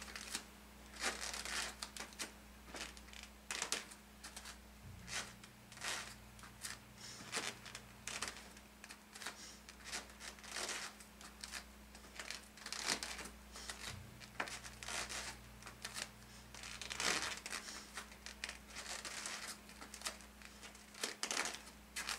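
Bare feet stepping back and shuffling on an exercise mat during alternating reverse lunges with arm swings: short, irregular rustles about once or twice a second, over a faint steady low hum.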